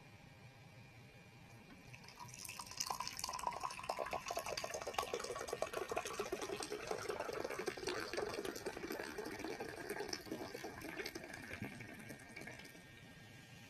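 Tea being poured from a teapot into a glass: a steady splashing stream that starts about two seconds in and tapers off near the end.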